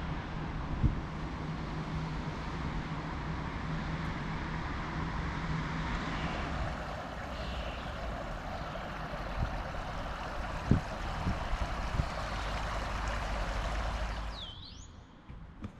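Steady outdoor noise with a low rumble, a faint hum for the first few seconds and a few soft thumps. It fades out about a second before the end, when a bird chirps briefly.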